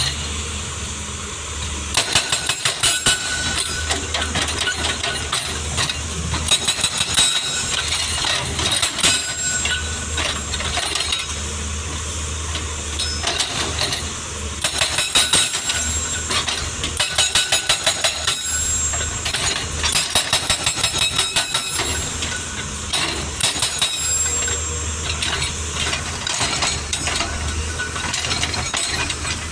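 Hydraulic rock breaker on a Case CX220C 22-ton excavator hammering in bursts of rapid blows, each burst lasting a few seconds. The excavator's diesel engine runs steadily underneath.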